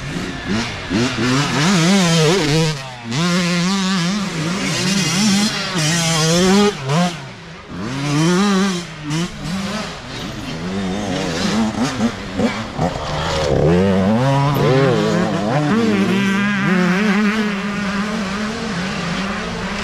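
Dirt bike engines revving, their pitch rising and falling over and over with throttle and gear changes, at times two bikes heard at once.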